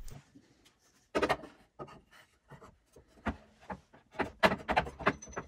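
Wooden workpieces handled and knocked together as a tenon is fitted into its mortise: a scatter of sharp wood knocks, with some rubbing between them and a quick cluster of knocks near the end.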